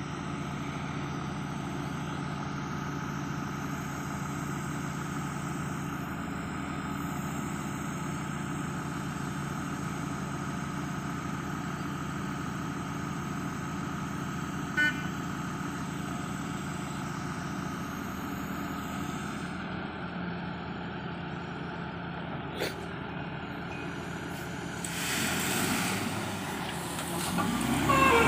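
Komatsu WA470 wheel loader's diesel engine running steadily, with a brief high toot about halfway through. Near the end, a louder rush of gravel builds as the bucket load is tipped into a dump truck.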